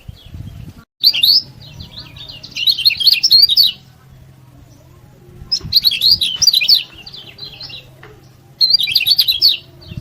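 Kecial kuning white-eye singing in four quick bursts of rapid, high, twittering chirps, each about a second long, with short pauses between.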